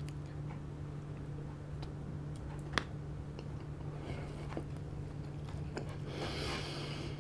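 Close-miked chewing and wet mouth sounds of a mouthful of raw salmon sashimi and rice, with faint scattered clicks and one sharper click about three seconds in. A short, louder rush of mouth noise comes around six seconds, over a steady low hum.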